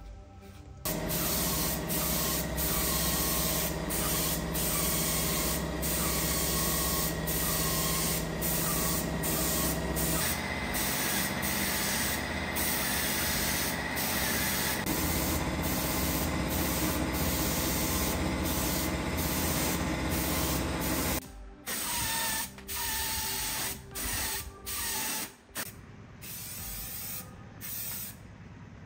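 Hose-fed paint spray gun hissing steadily with a steady hum under it as it coats a motorcycle frame. About 21 seconds in this gives way to short, repeated bursts from an aerosol spray can.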